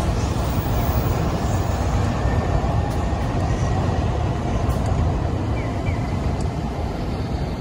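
A city bus drives past close by amid steady road-traffic noise, while a Shinkansen bullet train rolls along the elevated viaduct overhead; the mix is a loud, even rumble with no sharp events.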